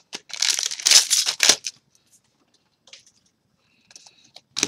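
Trading cards rustling and sliding against each other as a freshly opened pack is flipped through by hand, loud for about the first second and a half, then only a few faint ticks and a sharp click near the end.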